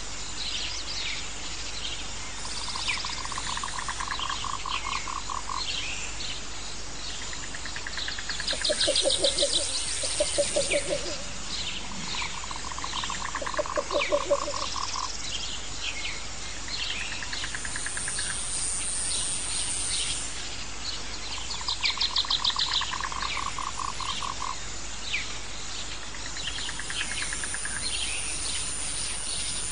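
Nature ambience of frogs, birds and insects: pulsed frog trills and croaks recur every several seconds over scattered bird chirps and a high insect trill. The loudest bursts of croaking come about a third of the way in and again near the middle.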